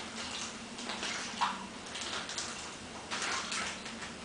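Lukewarm water sloshing inside a sealed plastic bag of slime powder (Component B) as it is swirled back and forth by hand to dissolve the powder. It comes as several separate swishes about a second apart.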